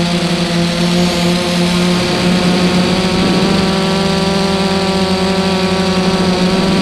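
FPV quadcopter's electric motors and propellers running, a steady buzzing whine over a hiss of rushing air. The pitch shifts a little with throttle, climbing slightly in the second half.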